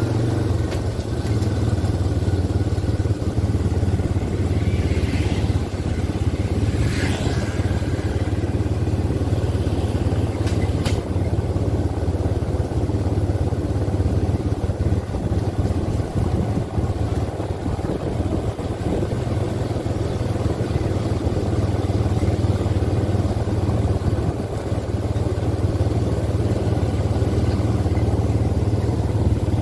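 Quad bike (ATV) engines running steadily while riding along at low speed, a continuous low drone.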